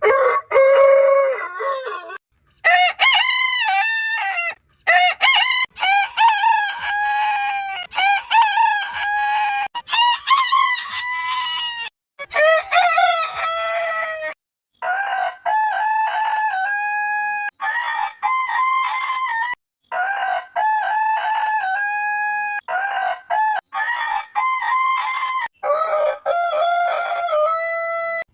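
Roosters crowing, one long crow after another in a string of separate clips, each call rising and falling in pitch; several of them cut off suddenly where one clip gives way to the next.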